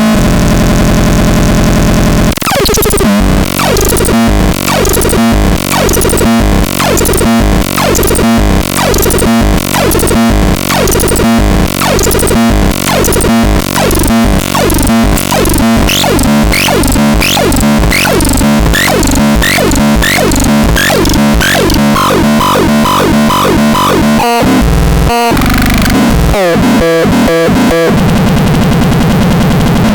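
Harsh, noisy synthesizer sound from the Talpalax. It opens with a steady buzzing drone. After about two seconds it turns into a dense pulsing texture, beating a little under once a second, crossed by quick falling pitch sweeps. Near the end it stutters with brief cut-outs before settling into another buzzing drone.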